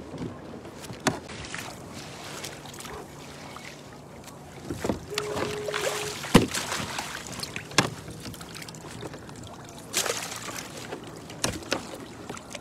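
Handling noise aboard a fishing kayak: scattered sharp knocks and rustling against the hull and gear as the paddler reaches and pulls, with a louder stretch of rustling about five seconds in, over light wind and water.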